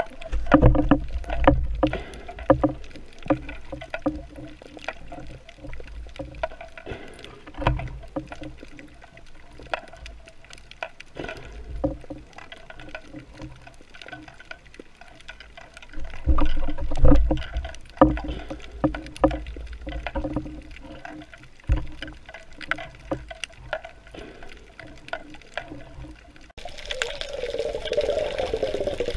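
Water sounds with many irregular clicks and low rumbling surges, changing abruptly near the end to a denser, steadier wash.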